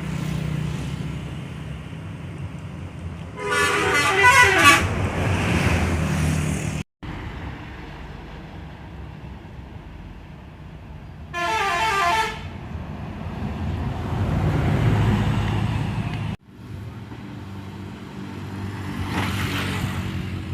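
Buses driving past with engine and road rumble; two of them sound a telolet horn, a multi-tone musical horn playing a quick stepping tune of several notes, about three seconds in for a second or two and again briefly about eleven seconds in.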